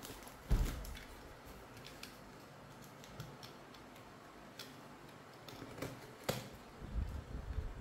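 Utility knife cutting the packing tape along a cardboard box's seam, with handling noises: a knock about half a second in, a few sharp clicks, and scratchy scraping and rustling near the end.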